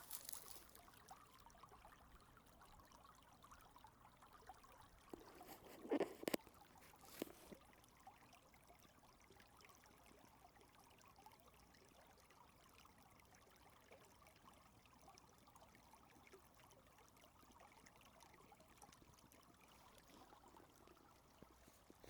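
Faint trickle of a small stream running under a washed-out footbridge. A few sharp knocks about six seconds in and once more a second later.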